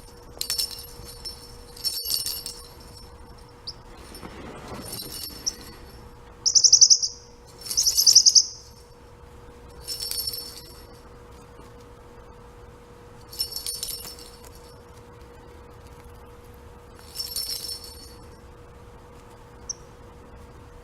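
Pet parrotlet making short, high, rattling chirps in imitation of its rattling toy ball, mixed with the jingle of the ball itself. About ten brief rattles come at uneven gaps, the two loudest close together about a third of the way in.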